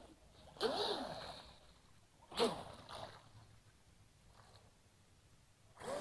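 Joysway Mad Flow F1 V3 RC speedboat's water-cooled brushless motor giving short throttle blips with splashing water, about half a second and two and a half seconds in, its whine sweeping up and down. Quiet in between, picking up again near the end.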